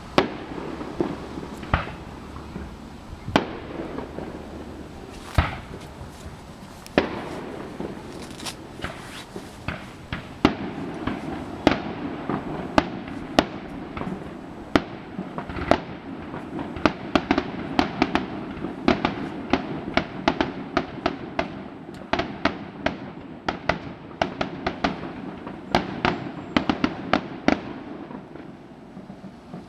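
Aerial fireworks bursting: single booms a second or two apart at first, then coming thick and fast in a rapid barrage from about halfway until near the end.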